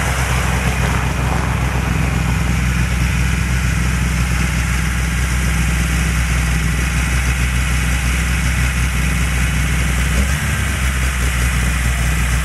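Lada VAZ-2101 rally car's four-cylinder engine idling steadily while the car stands stopped.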